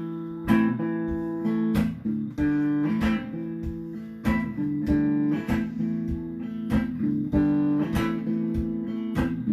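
Guitar strumming chords in a steady rhythm: the instrumental intro to a song, before the vocal comes in.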